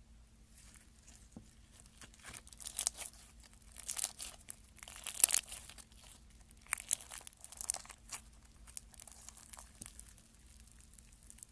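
Slime being worked by hand, giving clusters of crackly, crinkling sounds, loudest about five seconds in and thinning out toward the end.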